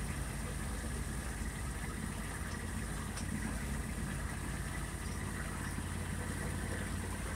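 2020 Argo Frontier 6x6 amphibious ATV's engine running steadily at low revs as the machine rolls slowly down a rough dirt trail.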